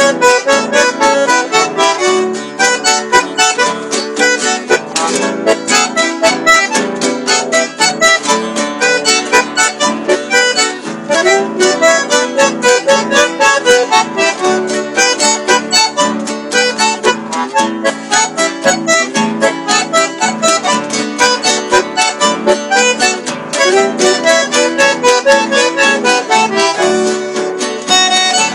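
Bandoneón playing a lively chamamé: quick, detached notes in a steady rhythm over held chords.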